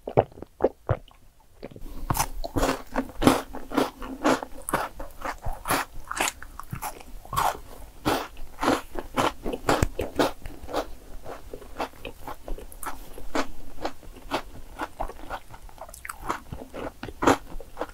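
Close-miked chewing and crunching of Milka chocolate, dense and irregular. It follows a quieter first two seconds of a few soft gulps while coffee is sipped through a straw.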